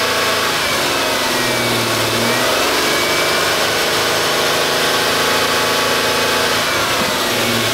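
2005 Ford Taurus V6 engine revved and held at a steady fast speed, about 3000 rpm, for an exhaust back-pressure test. The revs climb over the first couple of seconds and fall back toward idle near the end. The gauge reads 4 PSI at this speed, the sign of an exhaust that is still restricted.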